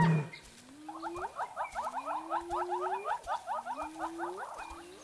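Spotted hyenas calling: a fast giggling run of short high notes, about eight a second, with several low drawn-out whoops rising in pitch underneath.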